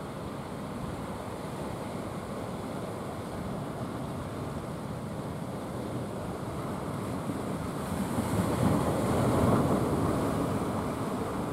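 Sea surf washing on the beach, with wind on the microphone; a wave swells louder about eight seconds in, then eases.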